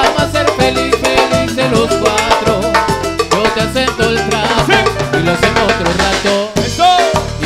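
Live Latin dance band playing an instrumental stretch of a song, with percussion keeping a steady beat under bass and melody.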